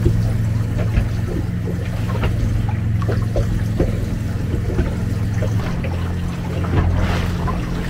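Boat's outboard motor idling as a steady low hum, with water lapping and splashing against the fibreglass hull and small knocks of fishing gear.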